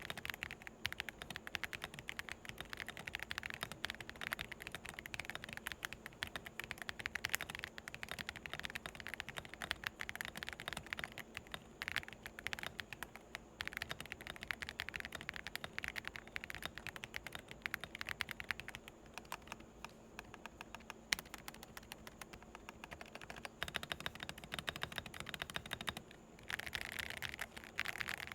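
Fast, continuous typing on a Redragon K734W wireless mechanical keyboard: a dense stream of key clicks with a light, creamy sound, thinning briefly a couple of times.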